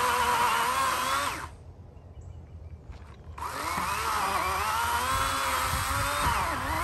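80-volt battery chainsaw cutting a rotten log: a steady electric motor whine that stops abruptly about a second and a half in and starts again about two seconds later, its pitch dipping and recovering as the chain bites into the wood.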